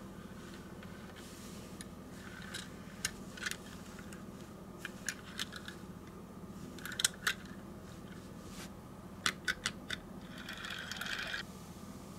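Small sharp clicks and taps of a Tomica die-cast toy car being handled and turned over in the fingers, about a dozen, coming in little clusters. About a second of scraping rustle comes near the end, as of a cardboard box being slid along the table.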